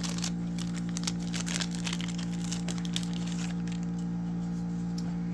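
Light crackling and clicking of packaging being handled while the charger is unpacked, the clicks thinning out after about three and a half seconds, over a steady electrical hum.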